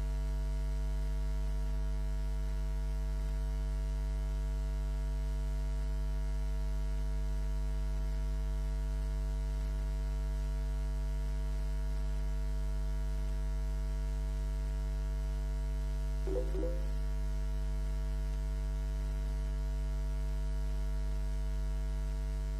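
Steady electrical mains hum with a low buzz, unchanging throughout, with one brief faint sound about sixteen seconds in.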